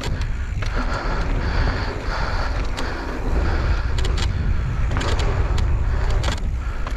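Mountain bike rolling fast over a packed-dirt jump line: knobby tyres on dirt, with a heavy wind rumble on the microphone and several sharp clacks and rattles from the bike over the bumps and landings.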